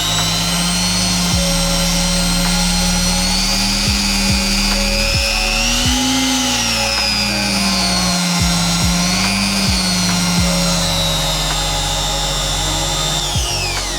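Budget trim router running with no load, a high motor whine. The pitch rises and dips a couple of times midway, then winds down near the end. Background music plays underneath.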